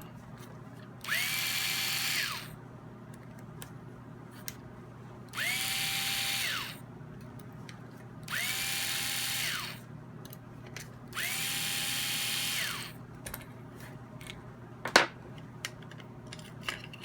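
Electric power driver backing out the cap screws that hold the rifle's cheek piece: four short runs, each spinning up to a steady whine, holding about a second and winding down, then a sharp click near the end.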